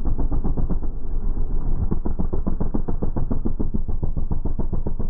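Can-Am Renegade ATV engine under hard throttle as it accelerates past, heard deep and muffled as if slowed down, as a fast, even pulsing.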